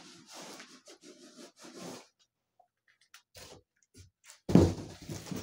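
Cardboard scraping and rubbing as a brown shipping box is slid up off the scooter's printed retail box, with short knocks. About four and a half seconds in comes a loud, heavy thump, most likely a box being set down.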